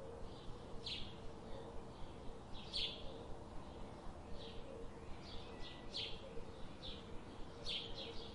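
Bird chirping: short high calls repeating roughly once a second, two close together near the end, over a faint steady hum.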